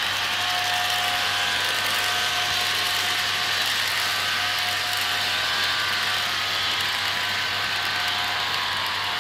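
Model freight train wagons rolling past on the track, their wheels making a steady mechanical clatter with many small clicks.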